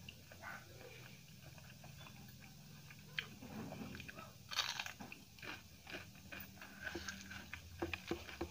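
Eating sounds: one crunchy bite into a raw green chilli just after halfway, followed by chewing with many small clicks.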